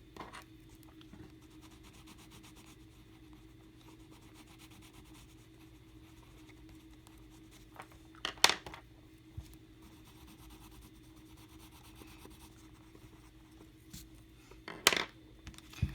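Coloured pencil rubbing faintly on sketchbook paper, with two sharp knocks, one about halfway through and one near the end.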